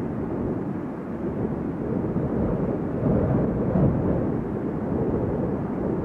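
Dust-storm sound effect: a steady, low rumbling rush of strong wind.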